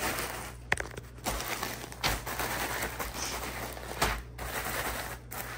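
Quart-size plastic zip bag of oyster crackers being flipped and pushed around on a countertop: plastic crinkling and crackers rattling, with a few sharp knocks as the bag lands.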